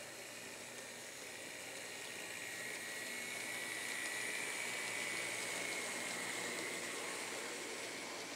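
Kato N scale Santa Fe diesel model locomotive running past on the track: a faint whirring of its small motor and wheels with a thin whine, swelling as it comes closest a few seconds in and easing off again. The engines are being run to break them in.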